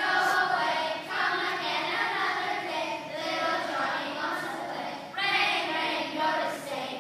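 A group of children singing a nursery rhyme together, in phrases broken by short pauses.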